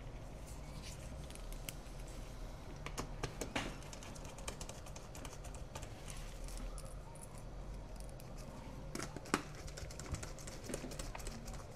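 Faint, scattered small clicks and taps of small screws and tools being handled on a work mat, a few louder taps a few seconds in and again near the end, over a low steady hum.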